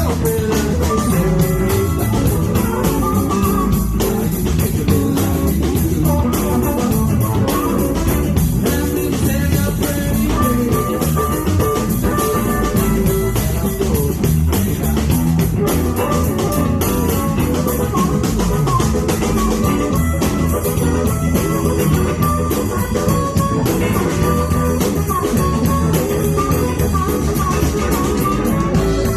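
Blues band playing: guitars, bass guitar and drum kit keep a steady beat under a melodic lead line.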